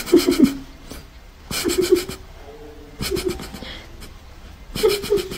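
A tabby cat making short pulsed vocal calls while being scratched under the chin, four of them about a second and a half apart.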